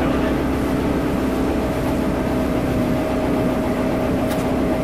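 A motorboat's engine drones steadily while the boat runs at speed, with a rush of wind and water over the hull.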